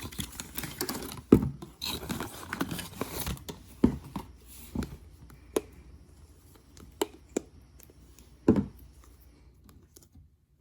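Slime being handled and pressed by hand: soft sticky crackling with scattered short clicks and pops, busier in the first half and thinning out toward the end.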